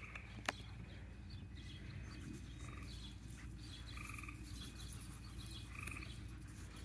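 Outdoor rural ambience of small animal calls: short trilled calls repeat every second or two among faint high chirps, over a steady low rumble. There is a single sharp click about half a second in.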